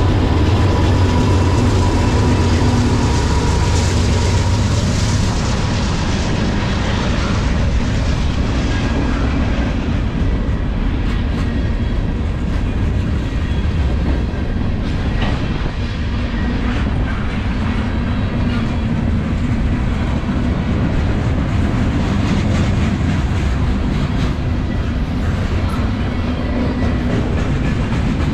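Diesel-hauled freight train passing close at speed: the locomotives' engines rumble by in the first few seconds, then the steady roar and clatter of freight car wheels rolling over the rails.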